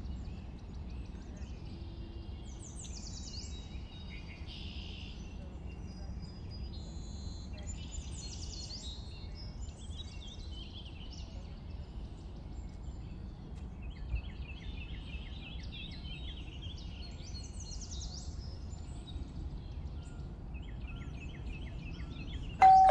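Birds chirping and trilling over a steady low rumble. Near the end an electric doorbell rings a two-note ding-dong, higher note then lower, the loudest sound.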